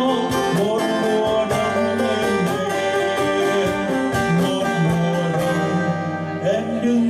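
Acoustic guitars strumming and picking an instrumental passage between sung lines, with a steady run of strums that thins out near the end.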